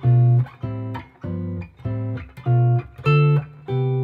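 Semi-hollow electric guitar comping a ii–V–I in C major with short, detached chords, about two a second, stepping down through the scale's chords from D minor 7 to G7 and then rising back to the I chord.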